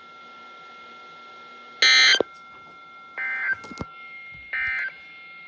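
Electronic beeps from a weather radio receiver: one loud buzzy beep about two seconds in, then two shorter, higher beeps about a second and a half apart, with a click between them.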